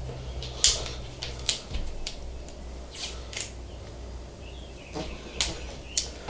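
Adhesive tape being pulled and pressed over the end of a sand-filled tube: a handful of short, sharp crackles and clicks scattered through, over a low steady hum.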